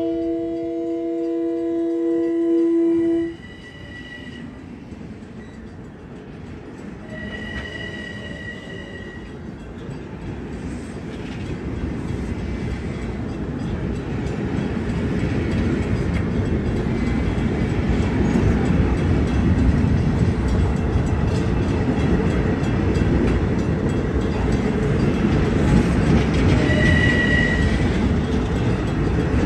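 Long Island Rail Road train horn holding a multi-tone chord that cuts off about three seconds in, followed by the rumble of the train, which grows steadily louder as it approaches and runs past.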